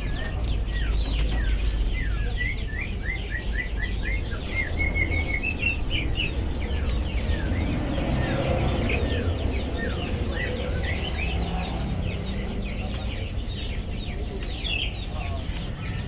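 Fischer's lovebird chirping: short high calls throughout, with a quick run of about four chirps a second around three to five seconds in, over a steady low background rumble.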